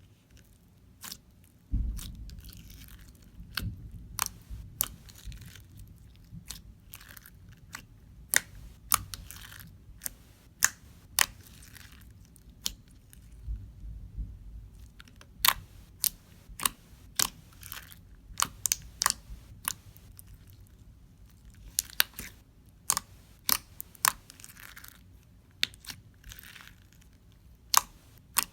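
Clear slime being squished and stretched by hand: an irregular string of sharp pops and clicks with soft squishing between them, and a couple of dull low bumps about 2 and 14 seconds in.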